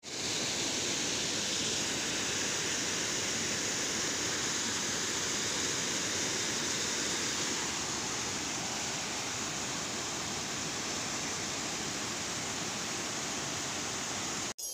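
Water cascading over a small concrete spillway into a churning pool: a steady rushing that cuts off suddenly near the end.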